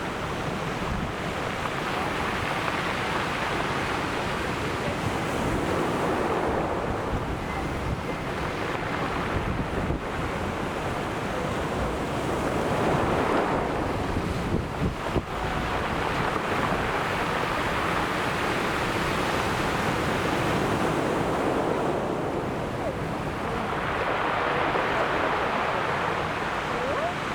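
Ocean surf: waves breaking and washing up the shore, the wash swelling louder about three times, with wind buffeting the microphone.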